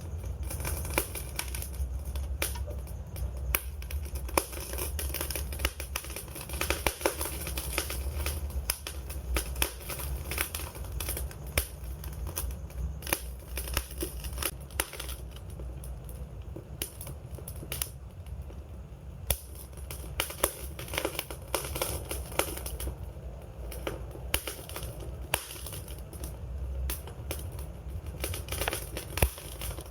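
Wood fire crackling, with a dense run of irregular pops and snaps over a low, steady rumble of burning.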